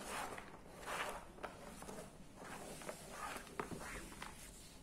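Shredded cabbage being swept off a plastic cutting board and dropped onto a plastic tray: a run of soft rustling swishes with a few light clicks.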